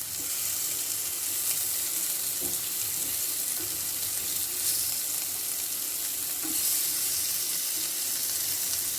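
Masala-coated raw banana slices sizzling steadily in a little oil in a non-stick pan, with a few faint soft knocks as the slices are turned over.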